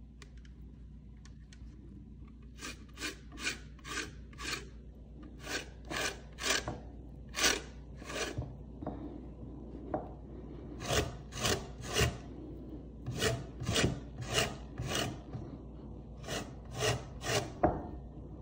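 Lemon peel being zested on a stainless steel box grater: short scraping strokes in runs of three to five, about two or three a second, with short pauses between.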